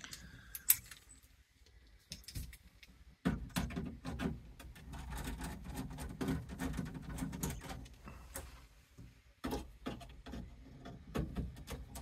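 Hand work with a screwdriver on a combi boiler's casing: scattered small clicks and light metallic rattles with rustling, and a sharper knock about nine and a half seconds in.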